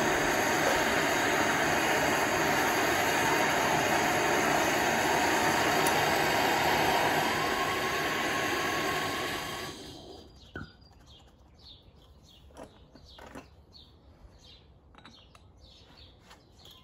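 Handheld gas torch on a gas cartridge burning with a steady loud hiss of flame, eased down about three-quarters of the way through and shut off about ten seconds in. Afterwards only birds chirping and a sharp metallic click remain.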